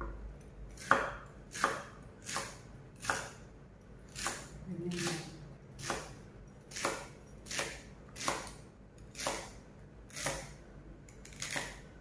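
Kitchen knife chopping celery stalks on a cutting board: a steady run of about fifteen sharp cuts, roughly one and a half a second.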